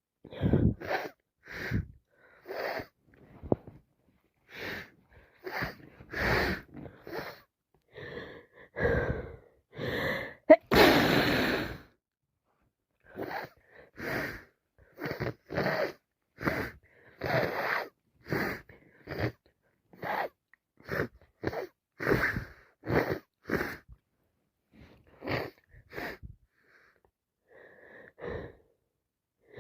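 A woman with a head cold making short breathy sounds through her congested nose and mouth, about one a second, with one loud, long burst about eleven seconds in.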